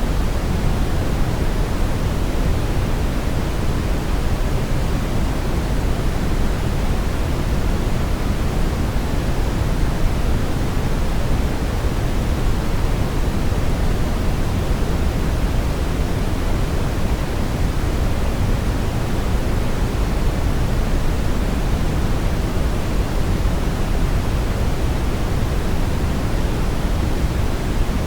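Steady brown noise: an even, unchanging rushing hiss weighted heavily toward the low end, with no events or variation.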